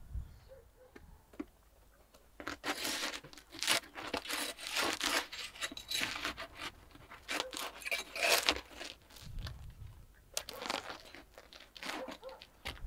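Metal hook and scraper prying baked loaves of crusty bread off the hot clay wall of a tandoor: irregular bursts of scraping and crackling, starting about two seconds in, with a pause of about a second near the end.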